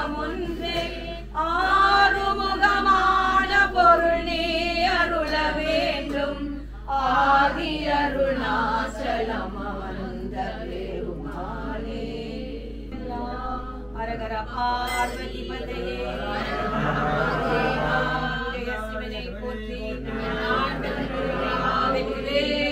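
Several voices chanting a Tamil devotional hymn together, in long held, wavering sung lines.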